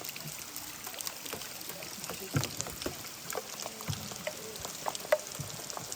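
Water dripping and splashing irregularly inside a limestone cave, scattered drops with short echoing tails over a steady watery hiss; a few louder splashes stand out.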